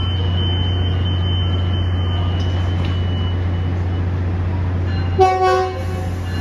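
Tri-Rail commuter train standing at the platform, its diesel locomotive running with a steady low hum. About five seconds in, a horn gives one short toot of about half a second.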